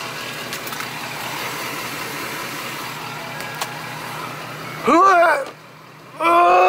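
Ford F-250's 6.7 L Power Stroke V8 turbodiesel idling steadily through a 5-inch straight-pipe exhaust. About five seconds in, a man groans twice with effort as he climbs up into the tall cab; these groans are the loudest sounds.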